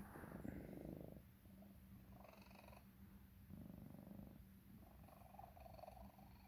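Domestic cat purring faintly in stretches, stronger in the first second and again a little past halfway. This is the purr of a cat that coughs and wheezes when purring; an X-ray found tumours in her throat.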